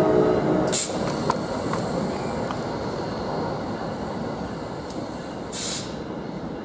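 NJ Transit commuter train at the platform: a steady rumble that slowly fades, with a whining tone that stops about a second in and two short air hisses, one about a second in and one near the end.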